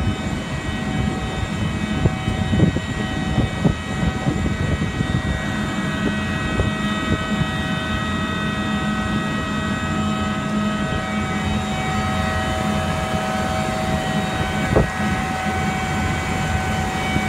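Distant freight train's diesel locomotives working: a steady low drone with a hum of several steady tones. Wind buffets the microphone, and a few short knocks sound near the start and about three quarters of the way through.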